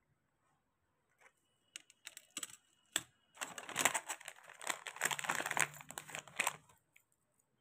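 Bubble wrap and plastic packaging crinkling as they are handled: scattered sharp crackles begin about two seconds in, thicken into a dense run of crinkling for about three seconds, and stop shortly before the end.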